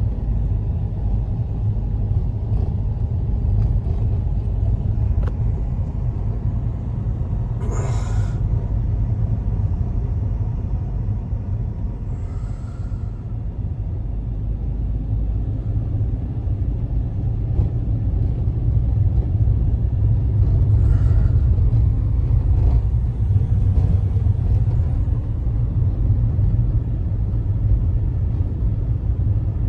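Steady low rumble of a car driving, engine and tyres on a snow-covered road, heard inside the cabin. A few brief sharper sounds come through on top now and then, the clearest about eight seconds in.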